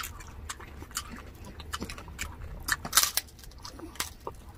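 Chewing and biting into crispy fried pork skin, with irregular crunches and small mouth clicks and the loudest crunch about three seconds in.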